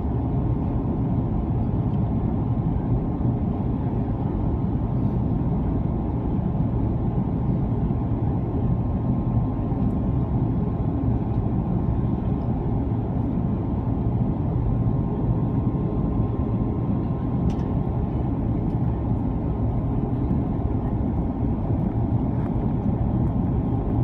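Steady low rumble inside the cabin of an Airbus A330-300 airliner: the even drone of its engines and airflow, unchanging throughout.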